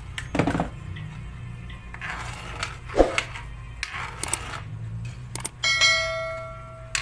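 A bell-like ding rings out and fades near the end, after a couple of short swooping sounds and light clinks, over a low steady hum.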